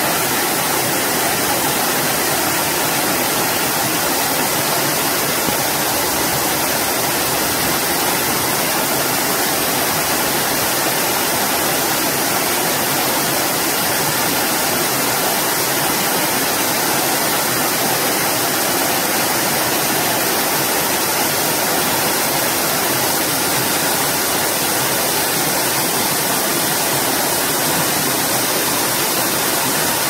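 Water falling down a small rocky waterfall and churning into white water below: a steady, unbroken rush.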